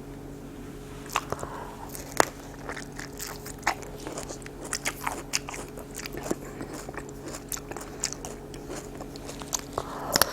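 A person eating close to the microphone: crisp, crunching bites and chewing, heard as sharp irregular clicks from about a second in, over a steady low hum.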